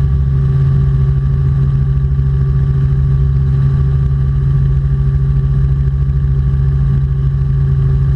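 Robinson R44 Clipper II helicopter in flight: the steady, unchanging drone of its six-cylinder Lycoming piston engine and rotors.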